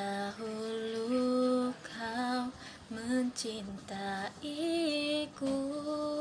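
A young woman singing solo, holding long notes with short glides between them.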